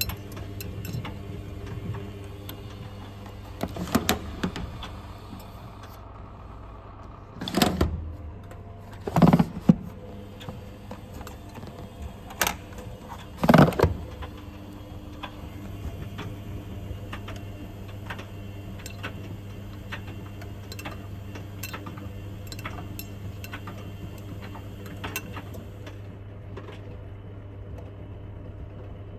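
Front-loading washing machines running a wash of work clothes, with a steady low hum throughout. Several loud knocks come in the first half and small clicks are scattered all through, as the load tumbles in the drum.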